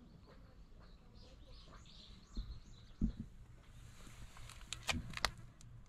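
Faint bird chirps in the background, then a few soft thumps and several sharp clicks near the end.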